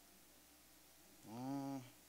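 Quiet room tone, then about a second and a half in a man's short wordless voiced sound, like a 'hmm', lasting about half a second, its pitch rising slightly and falling again.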